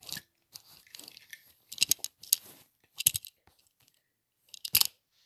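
A few short bursts of crunchy clicking noise. The loudest come just under two seconds in, around three seconds in, and near the end.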